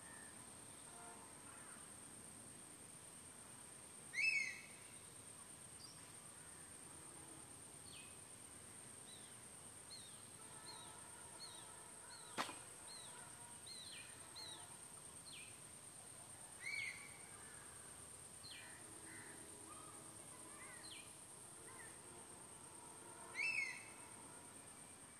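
Faint woodland ambience of birds calling: a run of quick falling whistled notes through the middle, and three louder short calls spread across it. A steady high-pitched whine sits under it all, and a single sharp click comes near the middle.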